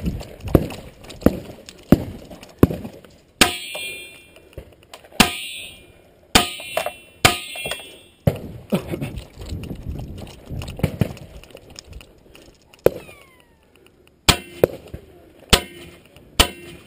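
Footsteps in sand, then four sharp handgun shots over about four seconds, each followed by a metallic ring. After a quieter stretch come three more pistol shots near the end, fired through a corrugated culvert pipe.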